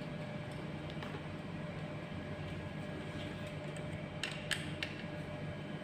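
A few small metallic clicks of a hex key working the bolts on a grass trimmer's housing: one about a second in and three close together near the end, over a steady background hum.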